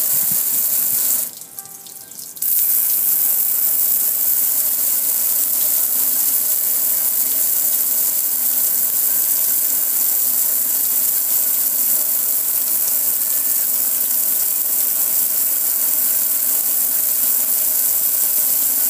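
Water spray hitting a gas grill: a steady high hiss of the jet with water splashing and running off the metal, cutting out for about a second shortly after the start and then running on.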